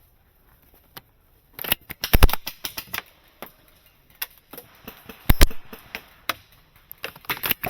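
Airsoft guns firing: sharp clacks, some single and some in quick runs, the loudest about two seconds and five seconds in.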